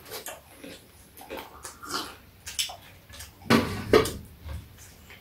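Fried chicken being eaten by hand: scattered short crunches, smacks and tearing sounds, with a louder brief sound about three and a half seconds in.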